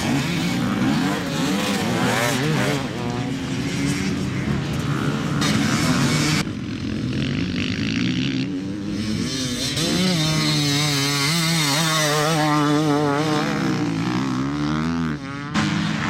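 Enduro dirt bike engines revving up and down as the bikes ride past on a dirt course, the pitch rising and falling with throttle and gear changes. The sound changes abruptly about six seconds in and again near the end, where one bike's pass gives way to another's.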